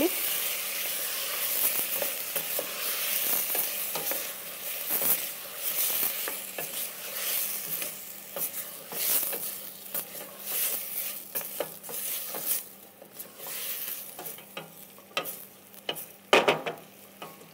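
Chopped tomatoes and vegetables sizzling in oil in a stainless steel stewing pan, stirred with a wooden spoon that scrapes and knocks against the pan. The sizzle is strongest at first and dies down toward the end.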